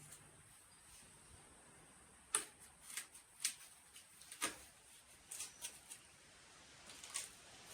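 A scattered series of short, sharp clicks and taps: cardboard pieces being handled and fitted together on a bench.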